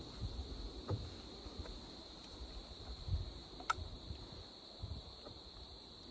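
Insects chirring in a steady, high, even drone, with a few faint, short clicks and knocks about a second in and again near four seconds.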